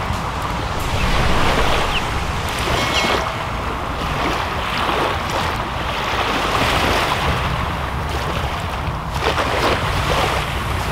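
Small waves lapping in shallow bay water, with wind rumbling on the microphone throughout. A splash about nine seconds in is a thrown cast net landing on the water.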